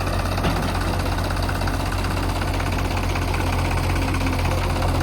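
Diesel engine of heavy machinery running steadily at low speed, with a deep, even hum.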